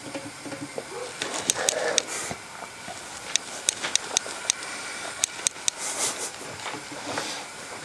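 A dozen or so short, sharp clicks and light knocks at irregular intervals, over faint room noise.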